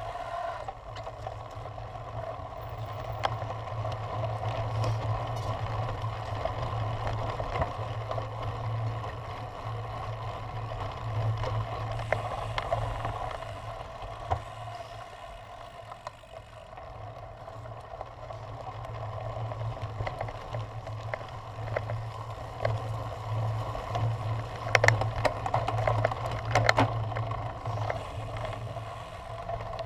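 Cyclocross bike ridden over a packed dirt course, heard through a camera mounted on the bike: a steady rumble of tyres and rattling from the bike, with a few sharper knocks from bumps near the end.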